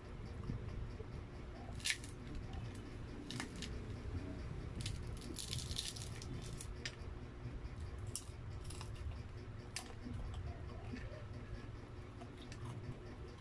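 Fingers tearing apart crispy fried chicken on an aluminium pan: scattered crackles of the breading and light clicks against the metal, with a sharp click about two seconds in and a cluster of crackling around five to six seconds. A low steady hum runs underneath.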